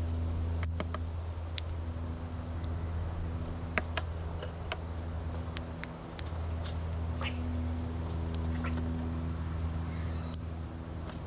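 Sharp clicks of a northern cardinal cracking sunflower seeds in its beak. Two loud clicks come about a second in and near the end, with fainter ticks between, over a steady low hum.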